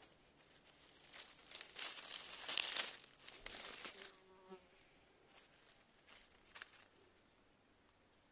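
Close rustling and crackling, loudest between about one and four seconds in, followed by a brief low buzz.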